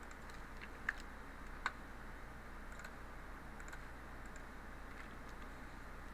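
A few clicks of a computer mouse and keyboard: two sharper ones about a second in, then fainter ticks, over a steady low hum.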